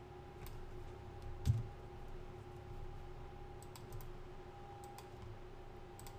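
Scattered clicks of a computer mouse and keyboard, a few at a time, with one louder thump about one and a half seconds in, over a faint steady hum.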